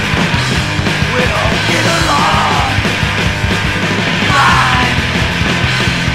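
Punk rock song playing at full band volume, with shouted vocals.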